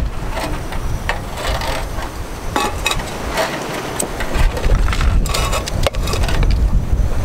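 Wind buffeting the microphone, with crinkles, rubs and a few light knocks as an aluminium-foil stove windscreen and a metal pot are handled.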